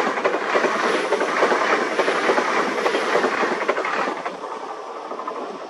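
Passenger train passing close at speed, its wheels clattering over rail joints and pointwork. The sound eases off about four seconds in.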